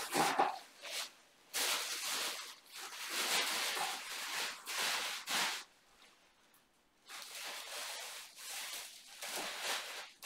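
Wrapping rustling and crinkling in irregular bursts as baby clothes are pulled out and unfolded, with a quieter stretch about six seconds in.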